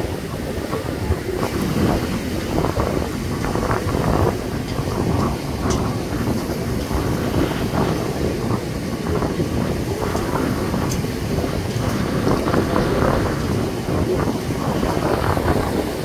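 Wind buffeting the microphone over the steady wash of sea waves on a beach.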